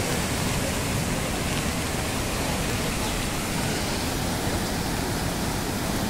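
Steady, loud rush of a swollen river in flood, with muddy floodwater surging over its banks.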